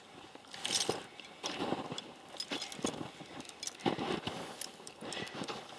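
Heavy steel chain clinking and rattling in short, irregular bursts as it is handled and hooked onto the base of a steel ground anchor post.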